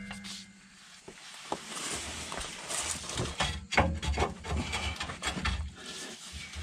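Old rear coil spring being worked loose by hand from its pocket on a lowered Ford Crown Victoria rear axle. Irregular metal scraping and rubbing with scattered knocks and clicks begin about a second and a half in.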